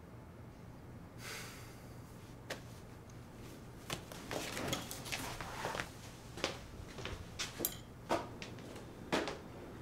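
A short soft hiss about a second in, then a run of irregular clicks and knocks in a small room.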